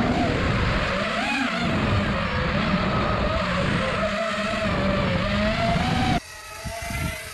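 Eachine X220S racing quadcopter's brushless motors and propellers whining, the pitch rising and falling with the throttle. The sound drops off suddenly about six seconds in, leaving a much fainter whine.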